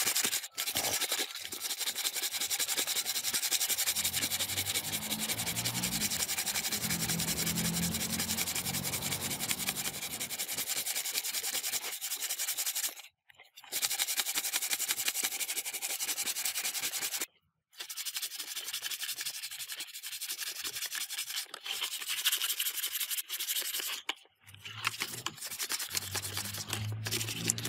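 Continuous abrasive rubbing or sanding on a hard surface in fast, even strokes, stopping briefly three times.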